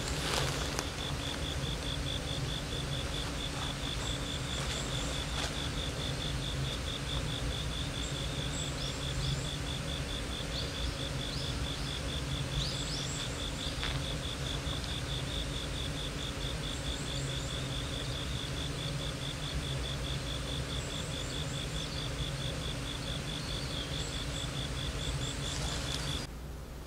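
An insect, cricket-like, chirping in a steady, even train of high pulses. A few faint bird chirps and a constant low background hum sit under it. It all stops abruptly near the end.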